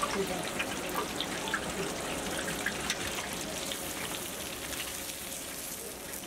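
Hot oil sizzling steadily around a whole fish deep-frying in a large iron kadai, with a dense crackle of small pops.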